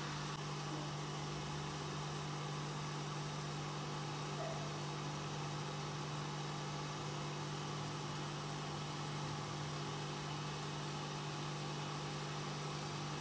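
A steady low hum with an even hiss over it.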